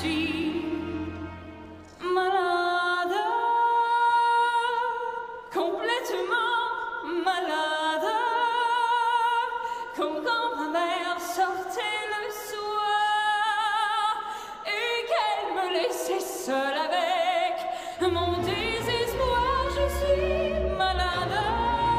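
Classical, operatic-style music with a sung vocal line, long notes with wide vibrato moving from phrase to phrase; a deep bass part comes in about four seconds before the end.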